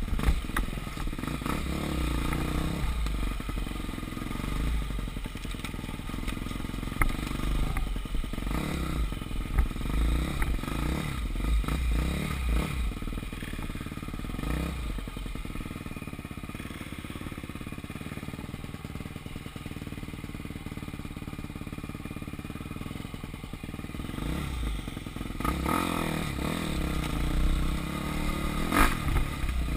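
Enduro dirt bike engine revving up and down as the bike is ridden over rough ground, with clattering knocks from the bike. About halfway through it runs steadier and quieter for several seconds, then revs up again near the end.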